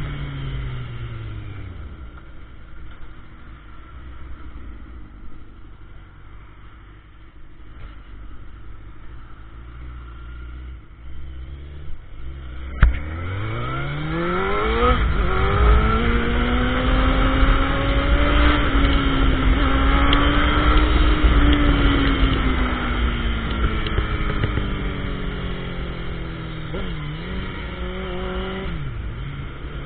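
Suzuki sportbike engine heard from the rider's seat: the revs fall away and it runs low and quiet for about ten seconds, then about 13 seconds in it climbs steeply under hard acceleration to a loud, high, steady note. The revs sag again toward the end, with two brief dips in pitch, and start to climb once more.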